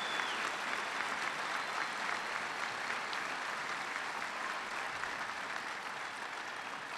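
A large audience applauding steadily, tapering slightly near the end.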